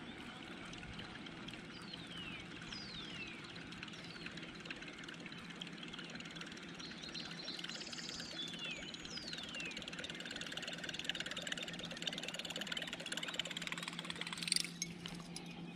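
Calm lakeside morning ambience: birds giving several short, falling whistles over a steady low hum, with one sharp click about a second before the end.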